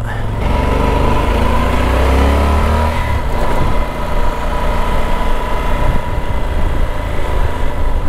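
Adventure motorcycle's engine, heard from the rider's helmet camera, rising in pitch as it accelerates for the first three seconds or so, then running at a steadier speed with road and wind noise.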